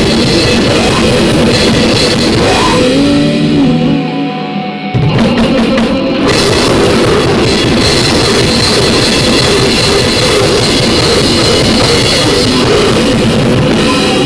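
Harsh noise music: a loud, dense wall of distorted noise filling every pitch, with a pounding drum-like churn. About four seconds in it thins for a moment to a few wavering tones, then slams back in at full force.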